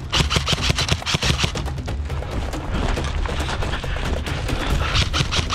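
Airsoft guns firing rapid bursts of shots, many a second, heaviest in the first second and a half and again near the end.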